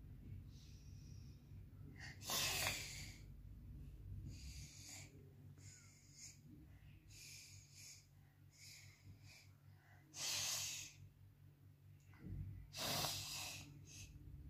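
A toddler with a pacifier in her mouth breathing through her nose: about six short, noisy breaths a couple of seconds apart.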